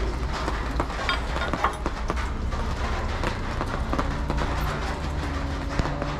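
An engine running steadily, with many irregular clicks and knocks over it.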